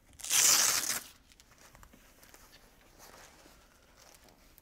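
A short ripping sound, under a second, of a soft body armor vest's fabric or straps being pulled open by hand, followed by faint rustling as the vest is handled.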